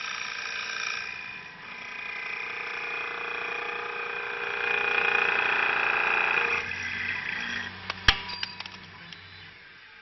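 Mini CNC wood lathe turning a wooden blank, its cutting tool making a steady, pitched whine against the spinning wood that grows loudest past the middle. The cut stops about two-thirds of the way through, leaving a lower machine hum, a sharp click and a few ticks; the sound then fades.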